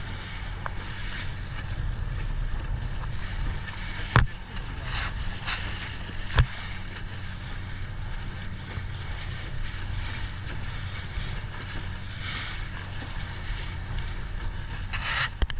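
A motorboat's engine runs steadily under a rush of water and wind on the microphone. Two sharp knocks, about 4 s and 6.5 s in, are the loudest moments.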